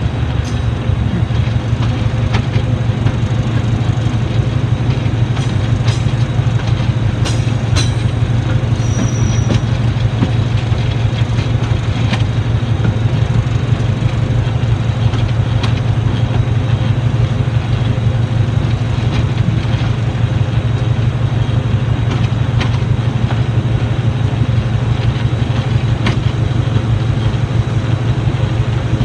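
Diesel-hauled train running steadily, heard from an open window on the train: a continuous low drone of engine and wheels on rail, with a few sharp clicks from the track.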